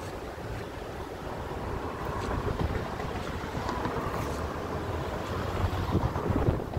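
Wind buffeting the phone's microphone over a steady rumble of open-air noise, gustier toward the end.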